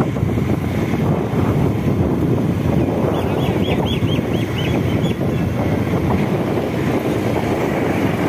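Wind buffeting the microphone in a steady low rumble. About three seconds in there is a quick run of about eight short high chirps from a bird.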